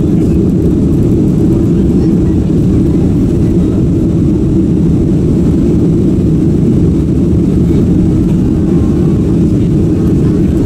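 Steady low drone of a Boeing 767's Rolls-Royce RB211 jet engines and the rushing air, heard from inside the passenger cabin, unchanging in level.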